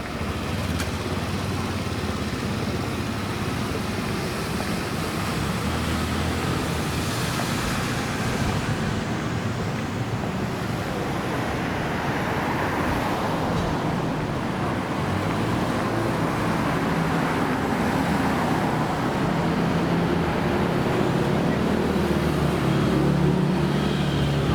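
Road traffic on a city street: a steady wash of passing cars, with a vehicle engine growing louder near the end.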